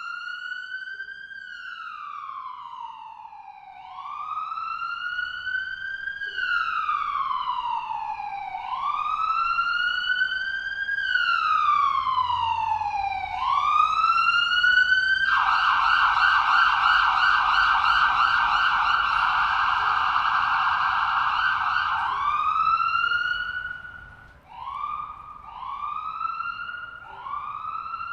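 Ambulance siren in a slow wail, its pitch rising and falling over about four and a half seconds per cycle. About halfway it switches to a fast warbling yelp for several seconds, goes back to one wail, then ends in short quick rising whoops.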